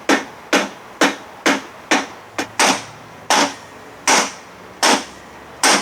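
Repeated hammer blows, about eleven sharp strikes, driving a wedge to break loose the seized gear case of a 1968 6 hp Evinrude outboard. The strikes come about two a second and slow to nearly a second apart near the end.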